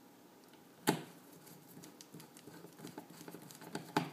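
A Phillips screwdriver turning the small screws that hold a wall outlet's cover plate on: a sharp click about a second in, then a run of faint quick ticks and scrapes, and another click near the end.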